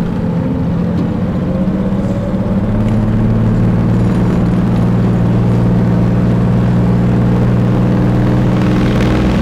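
Engine of an old truck, heard from inside the cab, rising in pitch over the first couple of seconds as the truck picks up speed, then running steadily at cruising speed.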